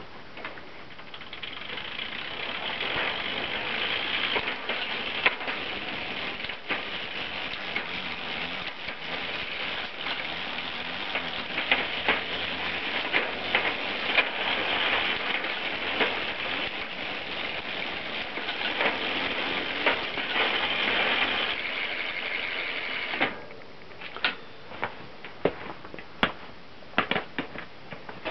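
1988 Cannondale SM600 mountain bike drivetrain running on a repair stand: the chain whirs over the rear sprockets and derailleur pulleys as the cranks are turned, with sharp clicks as the gears are shifted. The running stops about 23 seconds in, followed by a few scattered clicks.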